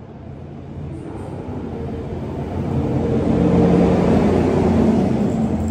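A passing motor vehicle: a noisy engine-and-road sound swells to a peak about midway and then starts to fade.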